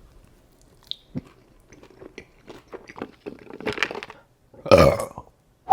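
Close-miked chewing and biting of food, wet mouth sounds with small irregular crunches and clicks, and a louder burst of mouth noise about five seconds in.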